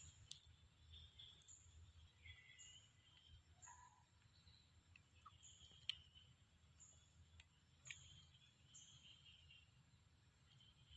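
Near silence, with faint high chirps repeating about once a second and two or three soft clicks.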